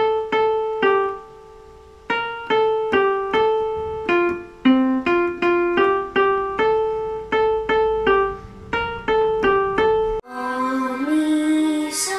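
Portable electronic keyboard played one note at a time in a simple melody, with a short pause about a second in. About ten seconds in it cuts off and a child starts singing solfège note names.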